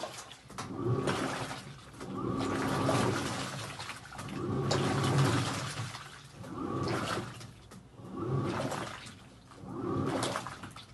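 Panasonic washing machine churning water in the drum during a wash, the sloshing swelling and fading about every one and a half to two seconds.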